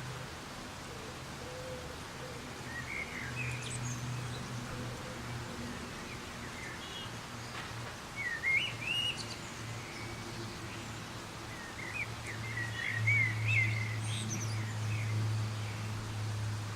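Soft rain falling steadily, with birds chirping in short warbling phrases about three seconds in, around eight to nine seconds, and again from about twelve to fourteen seconds. A low steady hum runs underneath.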